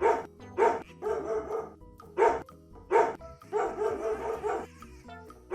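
A dog barking: four short, sharp barks, with longer, quieter sounds in between.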